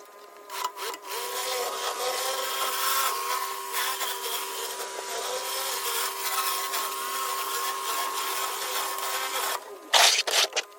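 Pressure washer flat surface cleaner running over sandstone paving: a steady hiss of high-pressure water with a constant whine. It stops near the end and is followed by a brief louder burst.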